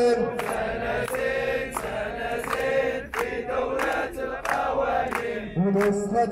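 Crowd of protesters chanting a slogan in unison after a leader, with rhythmic hand-clapping.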